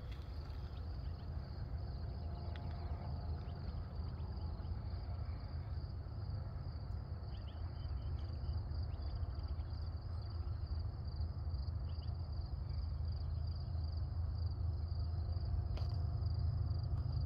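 Insects trilling in a steady high-pitched chorus over a constant low rumble.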